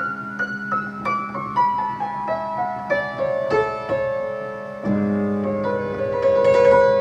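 Solo piano playing: repeated high notes over a held low note, then a melody stepping downward note by note, with a new low chord struck about five seconds in.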